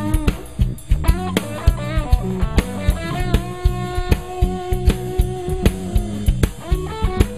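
A live drum kit and an electric bass playing a groove together, with dense kick, snare and cymbal hits over moving bass notes. A held higher note sounds for about two seconds in the middle.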